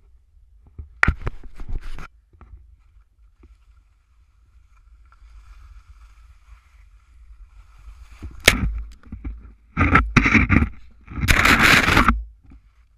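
Skis scraping and hissing through soft spring snow in turns, in loud bursts about a second in and again from about eight seconds on, with a sharp knock at the start of the later bursts.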